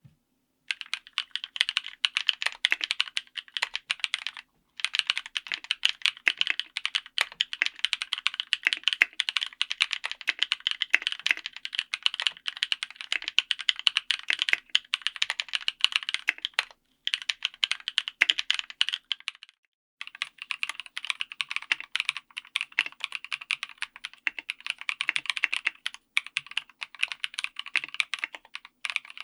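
Typing on a mechanical keyboard: rapid, dense keystroke clacks in several runs, broken by brief silent gaps where the recording cuts between takes.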